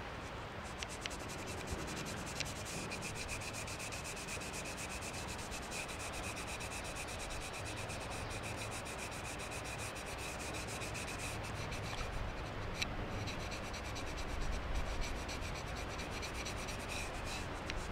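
A small brush scrubbing a carbon steel knife blade coated with Nagura stone slurry in quick back-and-forth strokes, lifting surface rust off the steel.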